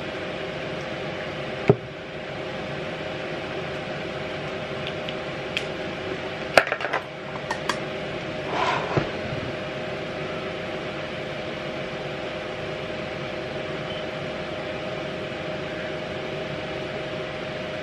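A steady machine hum holding two level tones, with one sharp click about two seconds in and a short cluster of clicks, taps and a rustle around the middle.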